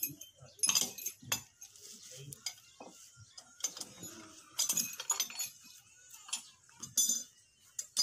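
Metal hand tools clinking and knocking against the steel rim of a tractor wheel as the tyre is worked by hand: a handful of sharp, irregular metallic strikes.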